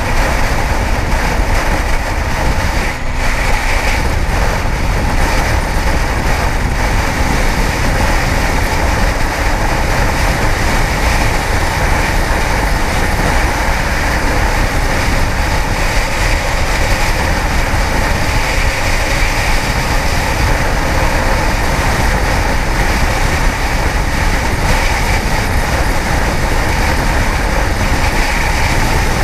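Kawasaki ZX-10R inline-four sportbike riding at freeway speed: a loud, steady rush of wind on the microphone over the engine's running, with no sudden change.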